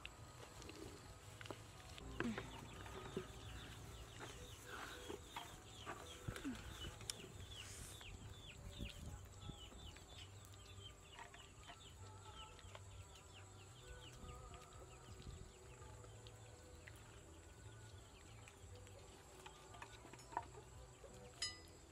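Faint outdoor ambience with chickens clucking, a run of quick falling chirps through the first half, and a steady high whine, broken by a few light knocks.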